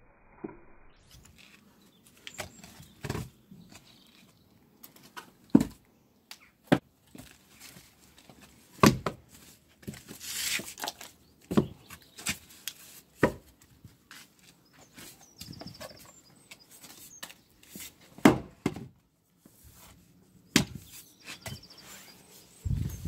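A string of sharp wooden knocks as split firewood pieces are handled and dropped onto a chopping block and concrete, with one noisy scraping stretch about halfway through. Near the end a splitting maul strikes a log standing on the block.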